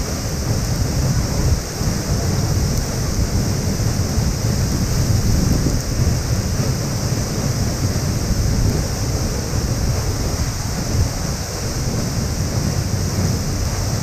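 Tiger Falls waterfall pouring nearby: a steady, loud rush of falling water with a heavy low rumble that does not let up.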